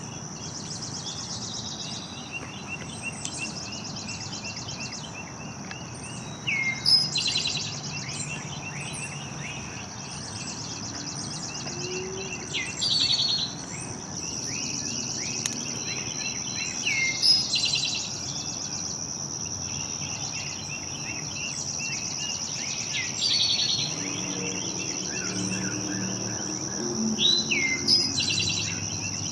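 Birds singing and chirping, a louder song phrase coming back about every five seconds, over a steady high-pitched insect drone.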